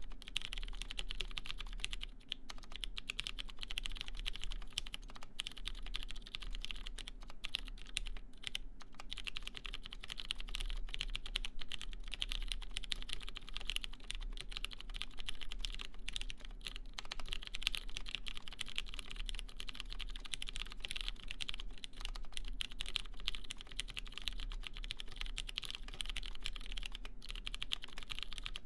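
Continuous typing on a mechanical keyboard with lubed Cherry MX Clear tactile switches, a brass half plate, GMK keycaps and lubed screw-in stabilizers: a steady stream of keystroke clacks broken by a few short pauses.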